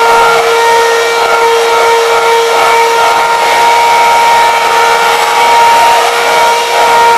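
Electric hand mixer running with a steady whine, its beaters whisking egg yolks and sugar in a glass bowl until the mixture turns pale and the sugar dissolves.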